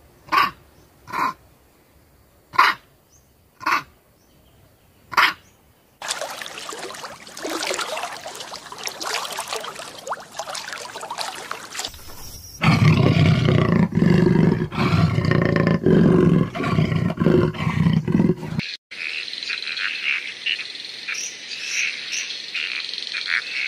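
A run of different animal calls. First come five short, sharp calls from Barbary macaques, then a stretch of even noise. Then comes a loud, low, rumbling roar-like call lasting about six seconds. Near the end a tree frog gives rapid high chirping calls.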